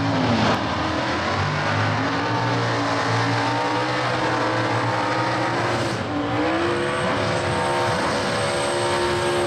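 Two Holden Torana drag cars doing burnouts, their engines held at high, steady revs while the rear tyres spin. The revs dip and climb again about six seconds in.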